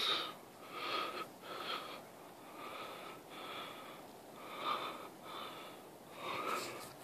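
A person breathing close to the microphone: soft breaths in and out, about one a second, with a slight whistly edge.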